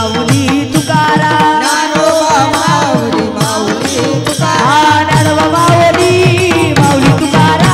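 Varkari bhajan: voices singing a devotional chant over a pakhawaj barrel drum beating a fast rhythm, with small brass hand cymbals (taal) clashing in time.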